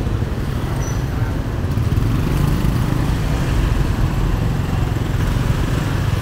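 Motor scooters' small engines running and passing close by in dense street traffic, a steady mix of engine and road noise.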